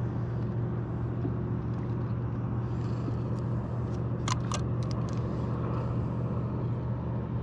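A boat's motor hums steadily at a constant pitch, with a quick cluster of sharp clicks about halfway through.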